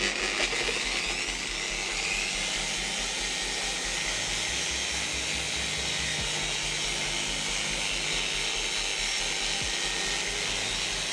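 Electric car polisher with a compounding pad spinning up with a rising whine, then running steadily against a car's painted bonnet while it compounds light scratches out of the clear coat.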